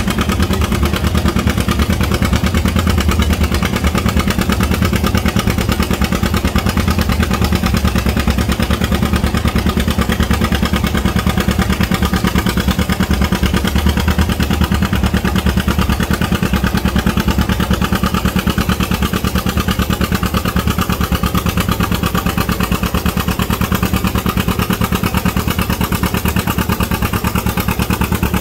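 Antique farm tractor engine running steadily with a rapid, even firing beat and no big changes in pitch.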